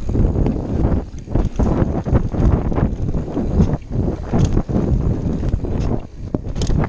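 Wind buffeting the microphone of a camera riding a Scott Ransom 930 full-suspension mountain bike at speed down a dirt trail, mixed with tyre noise and irregular rattles and knocks from the bike over bumps.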